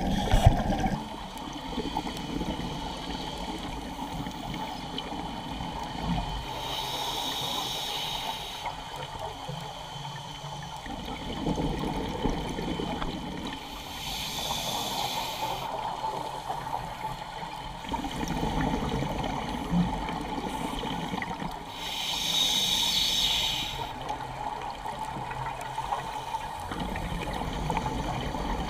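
Scuba diver breathing underwater through a regulator in a slow, even cycle: three hissing breaths about eight seconds apart, each followed by a low burble of exhaled bubbles.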